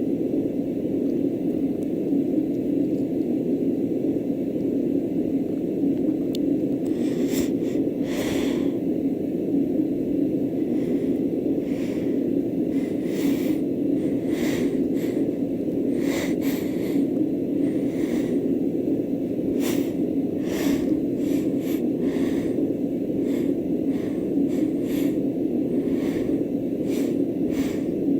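Steady whooshing of a bedroom sound machine throughout, with a woman's repeated short sniffs and hitching breaths coming every second or two from about seven seconds in, as she tries to bring on a sneeze.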